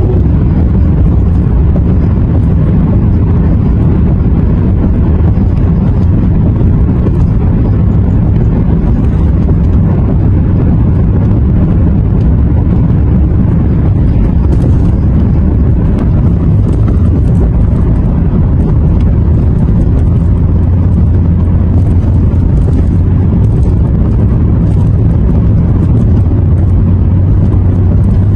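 A car driving at a steady speed, heard from inside the cabin: a loud, steady low rumble of engine and tyres on the road.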